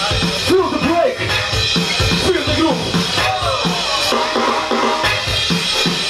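Loud hip-hop breakbeat music with a steady drum-kit beat, the backing for a breaking battle. A pitched line slides up and down over the beat from about half a second in until about four seconds in.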